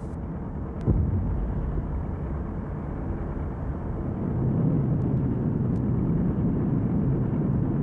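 Low rumble of the exploding Juno II rocket and its burning propellant, with a sharp thump about a second in and the rumble growing a little louder in the second half.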